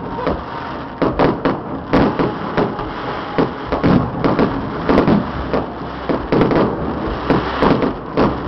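Fireworks going off: a rapid, irregular series of sharp bangs, about two a second, some close together.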